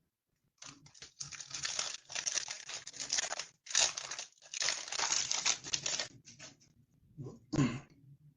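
A trading card booster pack wrapper being torn open and crinkled: about five seconds of crackling, rustling noise with a short pause partway through, then a brief noise near the end.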